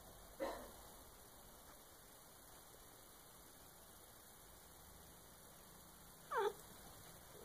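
A house cat gives one short meow that falls in pitch, about six seconds in, with a brief sound about half a second in, over a faint steady hum.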